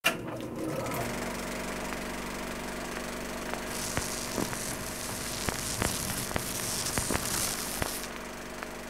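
Old film projector running with a steady hum, overlaid with the scattered pops and crackle of a scratched, worn film print. A sharp click comes at the very start, and a hiss rises about four seconds in and drops away near the end.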